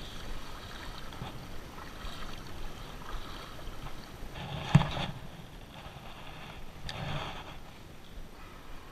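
Spinning reel being wound to retrieve a lure, with short whirring rushes and one sharp click about halfway through.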